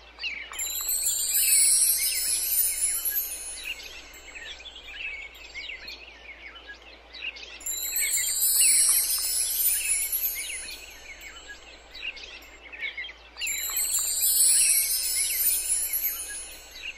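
A looping sound bed of bird-like chirps with high, shimmering chime sweeps, repeating about every six seconds and swelling each time.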